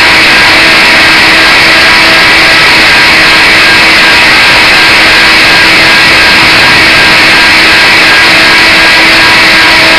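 Blade 130 X electric RC helicopter heard from a camera strapped right under it: its motor and rotor make a steady whine and rush with a constant hum tone, overloading the microphone at full level.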